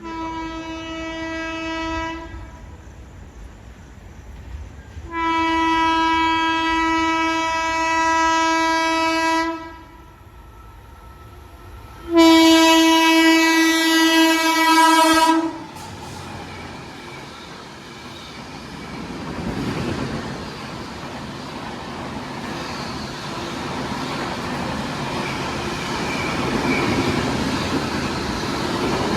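Indian Railways locomotive horn sounding three times: a short blast, then two longer blasts of about four and three seconds, the last the loudest. After that the rumble and wheel clatter of a high-speed train grows steadily louder as it approaches.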